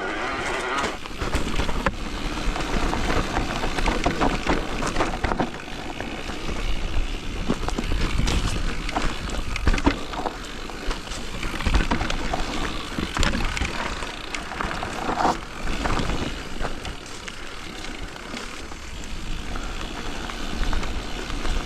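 Simplon Rapcon Pmax Pinion e-mountain bike riding down a dirt trail: rolling tyre and trail noise with wind rumble on the microphone, broken by frequent sharp knocks and thumps as the bike goes over bumps and roots.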